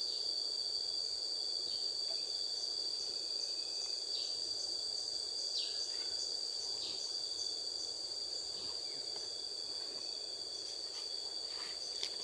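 Tropical forest insect drone: one steady high-pitched tone, with short falling chirps every second or two.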